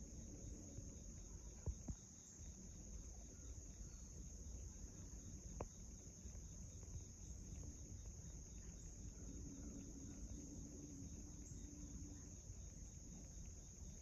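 Faint, steady high-pitched insect chorus, with a few soft clicks, one near the start and one about five and a half seconds in.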